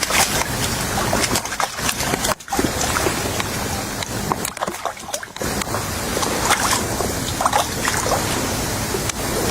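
Rushing wind and water noise at the waterside, with scattered small splashes and sloshing.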